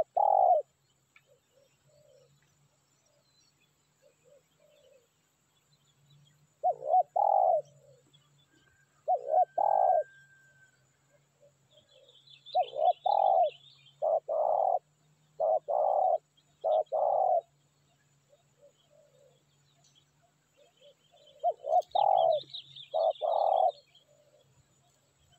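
Spotted dove cooing: short coo phrases come in bursts, with a run of about six coos in a row midway through. Faint high chirps from small birds come twice.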